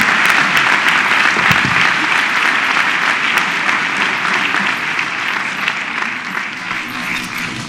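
Large audience applauding, the clapping slowly dying down.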